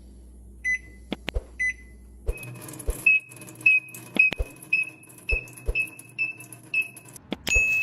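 Short electronic beeps: a few single beeps in the first two seconds, then a run of about ten higher beeps, roughly two a second, with a few scattered knocks among them.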